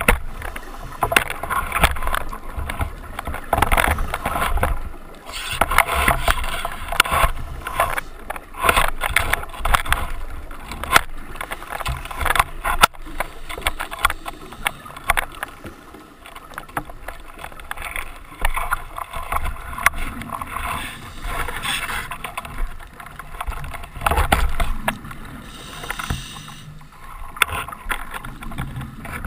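Scuba breathing underwater: a diver's regulator releasing bursts of exhaled bubbles that swell and fade every few seconds, with short hisses between them.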